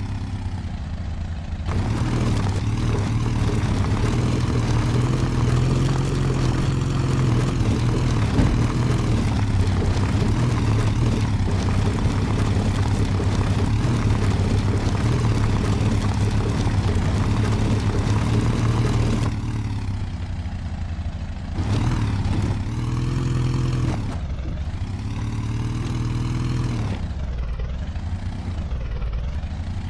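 Off-road 4×4's engine running loud and steady at high revs, then easing off about two-thirds of the way through, its revs rising and falling several times near the end.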